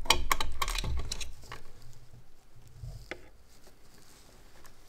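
Electrical cable being pulled out through braided cable sleeving: a run of quick rustles and small clicks over the first second and a half, then a single click about three seconds in, with fainter handling after.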